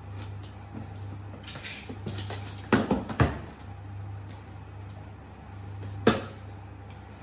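Cardboard box and packaging being handled and opened: rustling and scraping, with two sharp knocks about three seconds in and another near the end, over a steady low hum.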